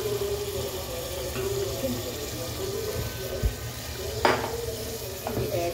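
Whisked yogurt being poured into a pot of onion-tomato masala, which sizzles and bubbles steadily in hot oil. A single sharp knock about four seconds in.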